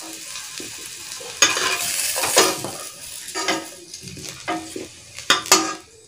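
A steel ladle scraping and knocking against a metal kadai as fried potato chunks are scooped out, over a soft sizzle of hot frying oil. The knocks are loudest about a second and a half in and again near the end.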